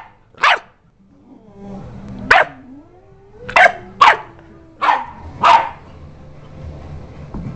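Pit bull puppy barking: six short, sharp barks over the first six seconds, most of them bunched in the second half, then it stops.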